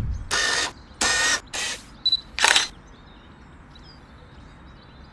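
Camera shutter and film-advance sound effect: about five short, sharp mechanical bursts in quick succession over the first three seconds, then a faint steady hiss.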